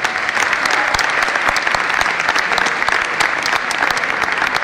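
A large crowd applauding, many hands clapping steadily.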